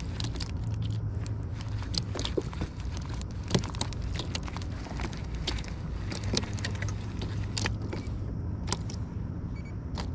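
Scattered, irregular clicks and knocks from handling a baitcasting rod and reel on a plastic kayak, over a steady low hum.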